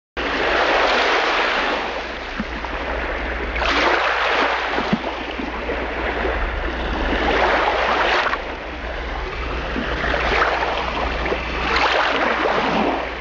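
Sea waves washing onto a shore, the surf swelling and easing every few seconds over a steady low rumble.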